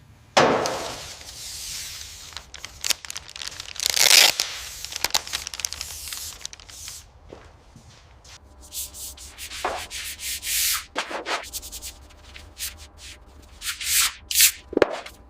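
Irregular rubbing and scraping strokes on a surface, a few of them loud, over a faint steady low hum.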